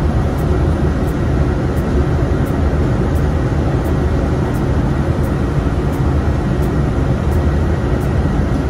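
Steady engine and road noise heard inside a moving bus at highway speed, a low, even rumble.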